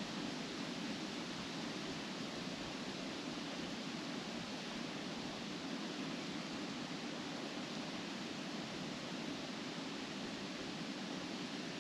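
Wind blowing steadily through trees, the leaves rustling in a continuous, even hiss.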